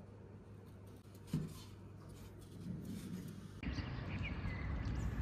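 A wooden serving board with gata set down on a cloth-covered table, giving one soft thump about a second in, against quiet room noise with a low hum. Near the end, outdoor ambience takes over, with a low rumble and a few faint bird chirps.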